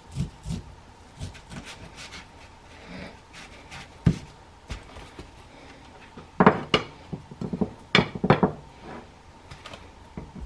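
A kitchen knife cutting through a rack of seasoned ribs on a foam meat tray, with scattered knocks and clicks as the blade meets the tray. The rib pieces are then handled and set into a glass baking dish, with a sharp knock about four seconds in and a busier run of louder knocks between about six and eight and a half seconds in.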